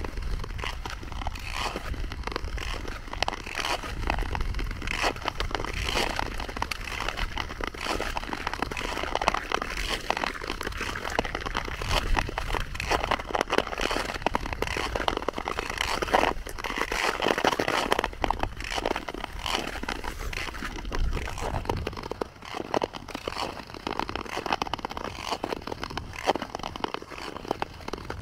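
Ice skate blades scraping and gliding over natural lake ice: a continuous scratchy hiss made of many short strokes. A low rumble underneath drops away about three quarters of the way through.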